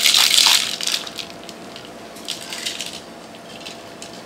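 Ice rattling hard inside a cocktail shaker being shaken, stopping under a second in, followed by a few softer clinks.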